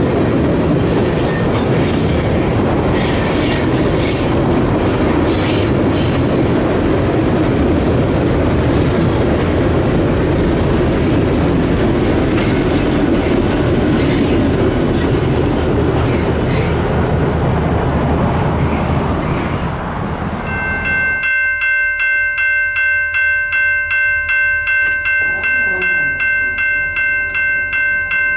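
Freight train rolling across a steel trestle bridge: a steady rumble and clatter of wheels on rail, with a few brief wheel squeals in the first seconds. About 21 seconds in the rumble stops and a railroad grade-crossing bell rings steadily, about one and a half rings a second.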